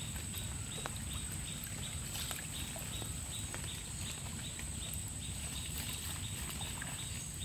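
Steady low outdoor rumble with a faint, high pulsing animal call repeating about four times a second. A few light clicks and splashes come as a collapsible box-trap net is hauled through shallow muddy water.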